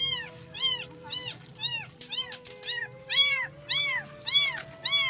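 A newborn kitten mewing over and over, about two loud, high cries a second, each rising and then falling in pitch. These are the distress cries of a just-born kitten abandoned without its mother.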